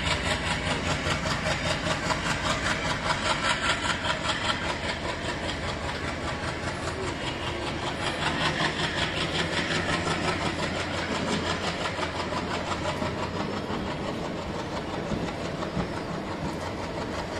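An ALCO diesel-electric locomotive's engine chugging in a steady pulsing rhythm under load as it pulls a passenger train away. The coaches roll by after it with wheel clatter on the rails.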